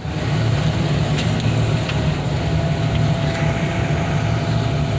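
A large engine running steadily with a low, even rumble, a faint thin whine over it and a few light clicks.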